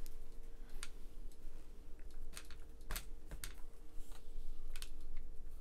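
Irregular light clicks and taps of the camera being handled and repositioned, over a faint steady hum.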